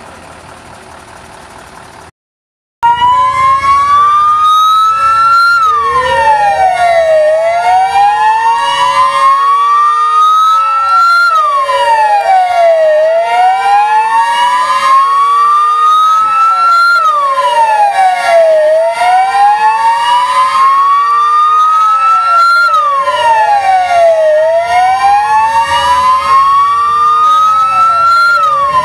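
Several fire-engine wail sirens sounding together and out of step, each rising slowly in pitch and dropping back quickly about every five to six seconds. They start abruptly about three seconds in, after a faint hiss and a moment of silence.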